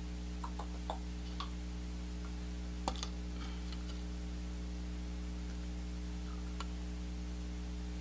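A few scattered light clicks and taps of a stirring stick and paint cup being handled while thick acrylic paint is stirred, over a steady low hum.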